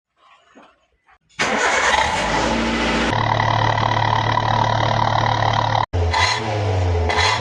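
Petrol car engine breathing through an aftermarket HKS-style 'SOS' exhaust muffler: it starts about a second and a half in, runs rough for a moment, then settles into a steady, deep idle. Near the end the engine is blipped twice.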